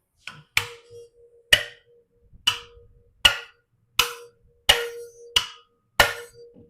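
Small ball-peen hammer tapping the valve stem tops and retainers on a GM 5.3 V8 cylinder head, about nine sharp metallic taps a little under a second apart, each leaving the valve spring ringing briefly. The tapping checks that the valve keepers are fully seated.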